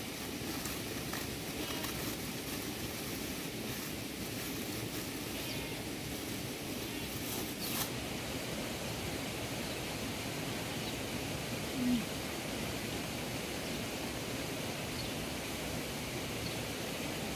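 Steady rustling outdoor noise with no clear source. There is a sharp click about eight seconds in, and a short low tone near twelve seconds, the loudest moment.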